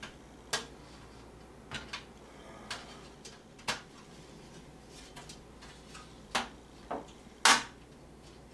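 Irregular sharp clicks and knocks from the metal parts of a small computer case being handled during assembly, about a dozen of them, the loudest near the end.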